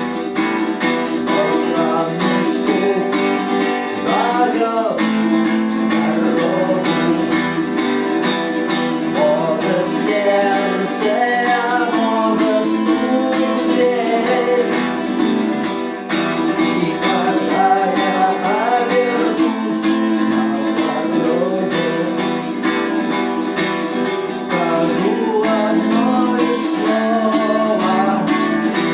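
Acoustic guitar strummed in a steady rhythm, with a man's voice singing over it at times.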